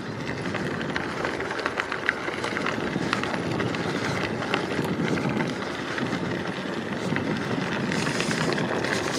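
Riding noise of an e-bike on an asphalt path: a steady rush of tyre rolling and wind with scattered small clicks and rattles.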